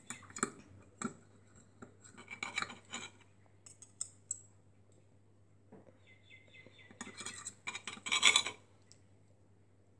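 A metal fork and knife scraping and clinking against a plate while cutting through pancakes, in two spells, the louder one near the end.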